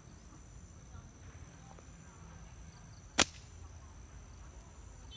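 A slingshot fired once about three seconds in: a single sharp crack of the rubber bands and pouch snapping forward on release. A steady high insect drone runs underneath.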